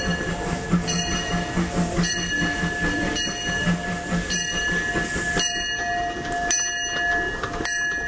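Disneyland Railroad steam locomotive pulling into a station with its bell ringing about once a second. Under it is a low rapid pulsing that stops about five and a half seconds in.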